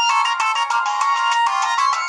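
Siemens CF62 mobile phone playing an electronic ringtone: a quick melody of short notes following one another without a break.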